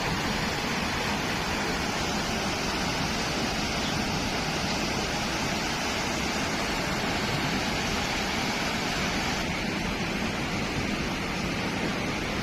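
Floodwater rushing past in a fast torrent: a steady, unbroken rush of noise.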